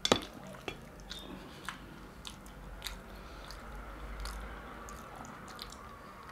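Close-up eating sounds: chewing and biting on mutton curry and rice, with scattered sharp clicks and smacks, the loudest right at the start.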